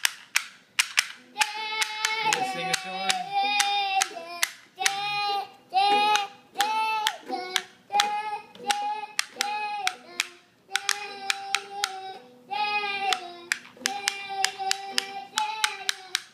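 A toddler singing a tune in drawn-out notes, with rhythmic hand-clapping keeping time alongside.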